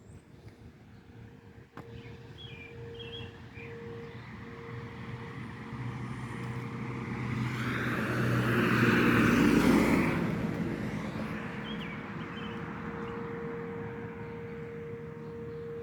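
A vehicle passing by, growing louder to a peak about nine to ten seconds in and then fading, over the steady tone of a distant storm-warning siren. Birds chirp briefly a couple of times.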